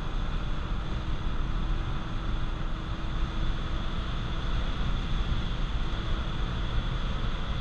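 Cabin noise of a Honda Accord CB7 on the move: the four-cylinder engine running steadily, blended with tyre and wind noise.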